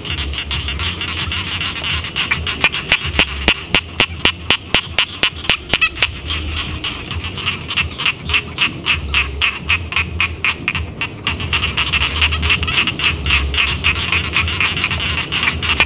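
Chorus of rice-paddy frogs calling, with a fast run of sharp, evenly spaced croaks from about two to eight seconds in, over a low rumble.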